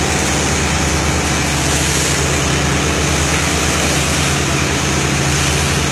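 A boat's engine running steadily, a low, even drone under a constant rushing noise.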